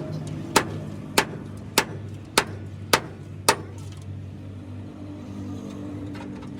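Hammer striking metal six times at an even pace, about one blow every 0.6 s, then stopping, with an engine running steadily underneath.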